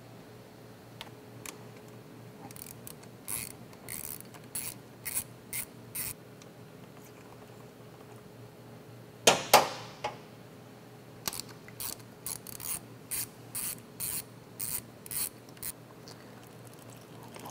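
A ratchet wrench clicks in two runs, about two to three clicks a second, as it backs out the 13 mm oil drain bolts on a KTM 790 Adventure engine. There is a single louder clatter between the two runs.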